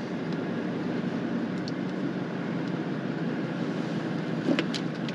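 Steady engine and tyre noise heard inside the cabin of a four-wheel drive driving along a dirt fire-break track, with a few light clicks near the end.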